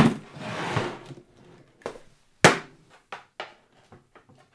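Handling sounds of a portable record player and audio gear being set up on a table: a knock as it is set down, about a second of scraping, then a sharp knock and several light clicks.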